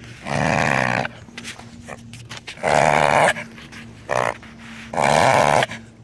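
Beagle reverse sneezing: three loud, noisy, rasping inhalations of under a second each, about two seconds apart. It is a spasm of the soft palate and throat, typically harmless.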